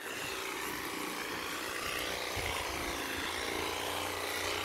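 Power saw running steadily while cutting out a wooden stump. It starts abruptly and runs without a break, with a low hum under it.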